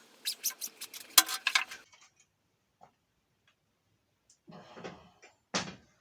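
Quick run of light metallic clinks and rattles for about two seconds, like loose metal parts or a chain being handled, then quiet; a short rustle and a single dull knock near the end.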